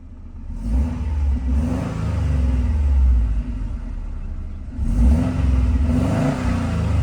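2008 Subaru STI's turbocharged flat-four engine revved twice on the stock factory exhaust: the revs rise about half a second in and hold for about three seconds, fall back, then rise again about five seconds in.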